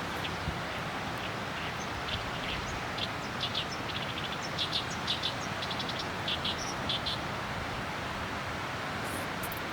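Birds chirping in a series of short high calls in the middle stretch, over a steady hiss.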